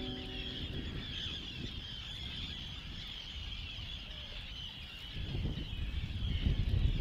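A flock of seabirds calling in a steady, dense chatter, with the last guitar chord of the music dying away in the first second. A low rumble builds from about five seconds in.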